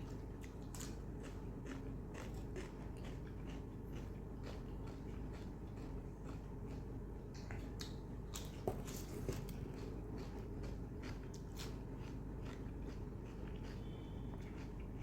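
A person chewing and biting food close to the microphone: many short wet clicks and smacks at an irregular pace, with one sharper click about nine seconds in. A steady low hum runs underneath.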